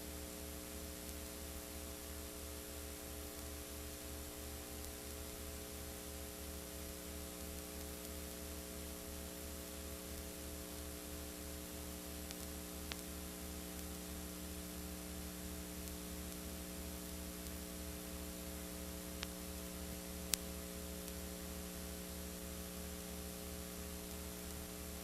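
Steady electrical mains hum with a low hiss of static, broken by a few faint clicks.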